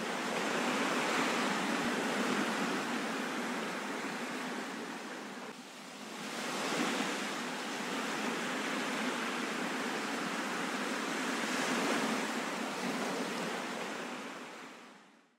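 Ocean surf: waves breaking and washing in a steady rush that dips briefly about five seconds in, swells again twice, and fades out at the end.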